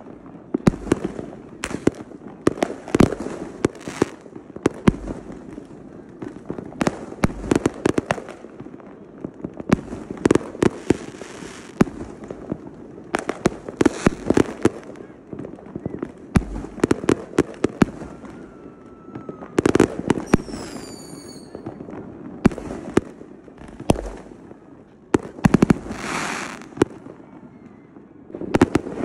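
Fireworks display: aerial shells bursting in irregular bangs, sometimes in quick strings, with longer crackling hisses after some bursts. About two-thirds of the way through, a few short falling whistles.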